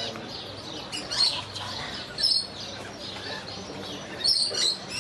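Short, shrill screeching calls of lorikeets, about one a second with two close together near the end.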